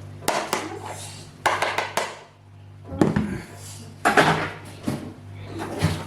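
Dishes and cutlery clinking: a serving spoon knocking and scraping against pots and plates as food is dished up, in a run of irregular sharp clinks with a quick cluster about a second and a half in.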